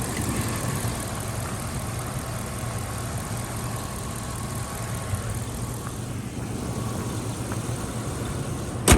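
Car engine idling steadily, with a faint steady whine from the ABS module's pump motor, which keeps running when it should have shut off. A single sharp click comes just before the end.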